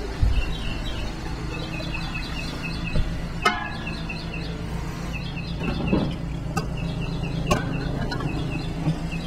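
A few sharp clinks and knocks from handling cans of chicken broth at a pot of brine water, over a steady low hum. Small birds chirp repeatedly in the background throughout.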